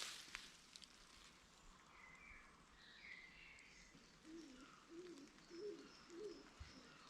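A pigeon cooing, four low notes in a row starting about four seconds in, with small birds chirping higher up.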